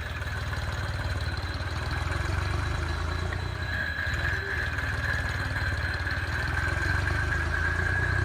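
Steady, even, low engine-like hum from a toy construction machine, with a thin high whine that comes in about three and a half seconds in.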